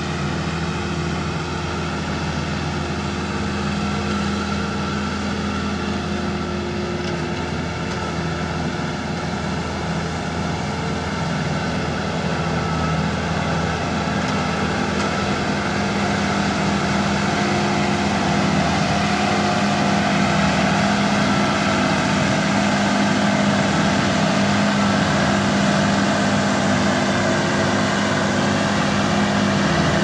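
Agriunion rice combine harvester running steadily at work: a constant engine hum over a machinery whir, growing a little louder about halfway through.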